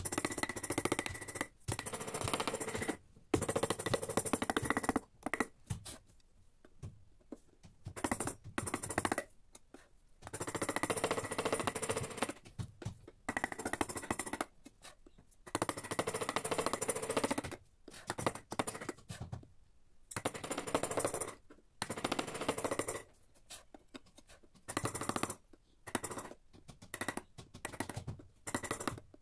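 Carving gouge cutting into teak wood by hand, in repeated bursts of rapid crackling scrapes, each lasting a second or two, with short pauses between strokes.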